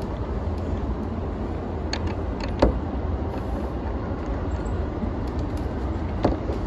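Keihin-Tohoku line E233-series electric train running at speed, heard from inside the front cab: a steady low rumble of wheels on rail, with a few sharp clicks about two to three seconds in and another near the end.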